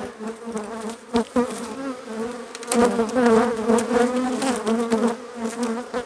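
Honeybee colony buzzing around an opened hive: a steady hum that wavers and swells as bees fly close past. A few sharp clicks a little after a second in come from a metal hive tool prying at a queen excluder glued down with propolis.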